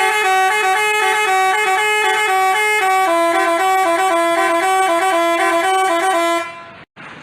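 Basuri multi-tone 'telolet' bus horn playing a quick tune, its notes stepping up and down. The tune fades out and stops about six and a half seconds in, leaving a quieter hiss.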